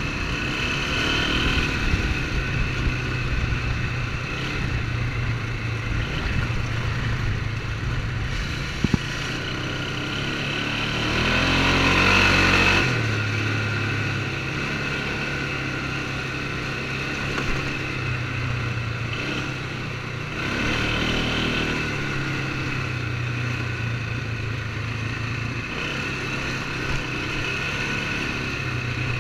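Polaris ATV engine running steadily under way on a dirt track. It swells louder for a couple of seconds about twelve seconds in, and there is a sharp knock a little before nine seconds in.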